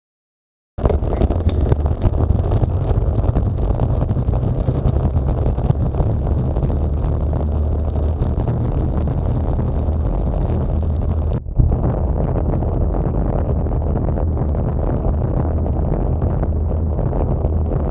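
Steady wind buffeting on the microphone with rumble from a racing bicycle moving at speed. It starts less than a second in and cuts out briefly about eleven seconds in.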